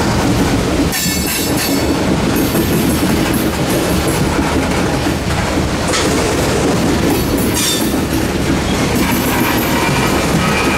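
Loaded limestone slurry tank cars of a freight train rolling past close by: a steady loud rumble and clatter of steel wheels on the rails. High-pitched wheel squeals come and go several times.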